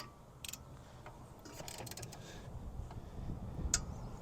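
Faint, scattered metallic clicks and taps of hand tools working on a bolt of the car's rear suspension, with one sharper click near the end.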